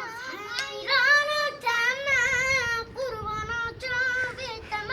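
A child singing solo in a high voice, holding long wavering notes with ornamented turns between short breaths.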